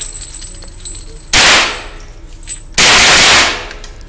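Gunfire from an AK-47-style rifle, heard as two loud, overloaded reports: a short one about a second in, then a longer blast lasting over half a second near three seconds in, each fading off after.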